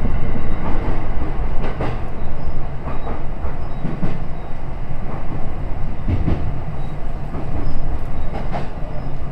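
Train running along a branch line, heard from inside the carriage: a steady low rumble of wheels on the track, with a clack every second or two as the wheels cross rail joints.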